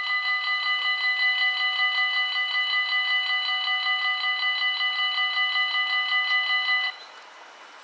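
Level crossing warning bells ringing rapidly and steadily as the barriers come down, then cutting off suddenly about seven seconds in once the barriers are down.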